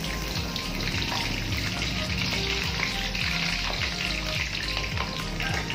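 Pempek adaan fish balls deep-frying in a wok of hot oil: a steady, even sizzle.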